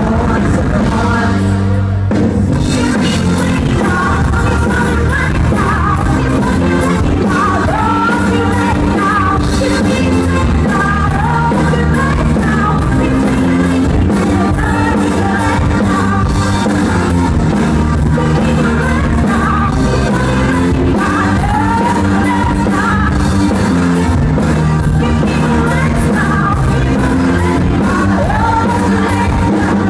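Loud pop-rock song with female vocals sung over a band with drums and electric guitar, in a steady beat.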